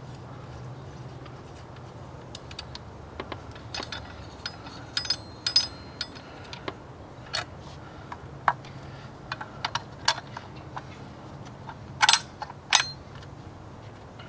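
Scattered metallic clicks and clinks of hands working the FICM's finned metal housing and its mounting bolts into place, with two louder, ringing clinks near the end.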